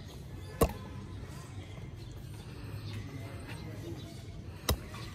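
Two sharp badminton racket strikes on a shuttlecock, about four seconds apart, the first the louder, over a steady low background rumble.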